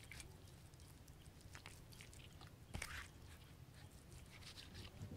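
Faint wet squishing and clicking of hands rubbing a chopped red spice paste into a raw chicken leg on a banana leaf, with one louder click about three seconds in.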